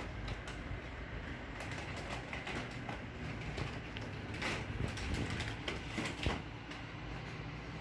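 Steady low rumble of passing traffic heard through an open window, with scattered clicks and knocks, a few sharper ones about halfway and near the end.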